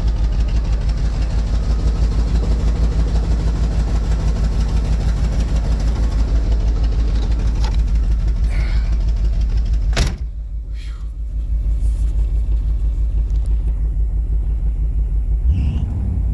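Pontiac 305 Crossfire V8 idling with a steady low pulse. A single sharp knock comes about ten seconds in, after which the engine sounds duller and quieter.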